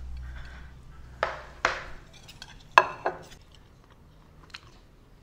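A ceramic plate knocked and clacked against a wooden table as it is set down: four sharp knocks in the first few seconds, then a few faint ticks.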